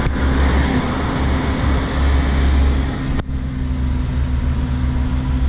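Truck engine running steadily while driving, with road noise. About three seconds in the sound breaks off for an instant, and there is less hiss after it.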